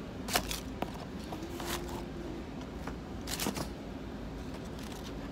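Cardboard-and-plastic boxes of die-cast model cars being handled and shifted against one another, with a few scattered clacks and rustles over a steady low background hum.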